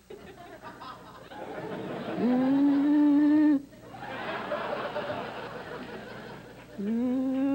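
A woman's heavy breathing run through a comic sound filter. Breathy stretches alternate with two long pitched tones, each sliding up briefly and then holding steady for about a second and a half. The second tone comes near the end.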